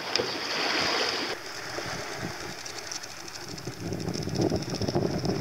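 Water splashing and rushing along the hull of a small sailing dinghy under way, with wind noise on the microphone.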